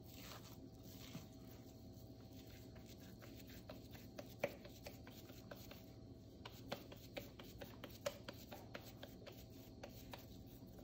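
Oiled hands scooping and pressing soft chicken-and-chana-dal shami kebab mixture into a ball, heard as faint scattered soft clicks and pats that come thicker in the second half, one sharper tick a little before halfway.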